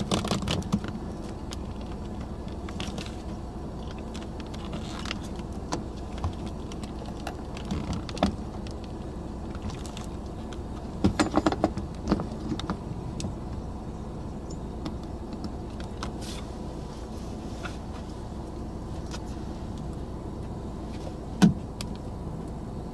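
Steady low rumble of a vehicle's running noise, with scattered small clicks and knocks from handling, a cluster of louder ones about halfway through and one sharp knock near the end.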